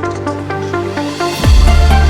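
Electronic background music: short repeating synth notes, joined by a heavy bass line and kick drum about a second and a half in.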